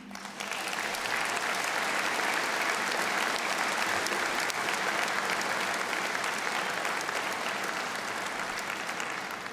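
Large audience applauding: clapping starts at once, holds steady, and tapers off near the end.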